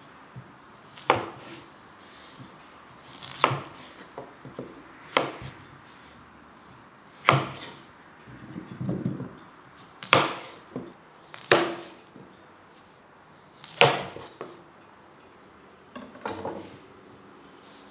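Chef's knife cutting peeled potatoes into chunks on a plastic cutting board: single sharp knocks of the blade through the potato onto the board, about eight in all, every two seconds or so, with softer handling of the pieces in between.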